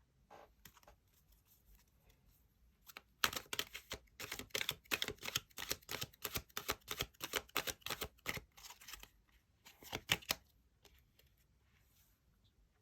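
Tarot cards being shuffled by hand: a fast run of crisp card flicks and snaps for about five seconds, starting about three seconds in, then a few more a couple of seconds later.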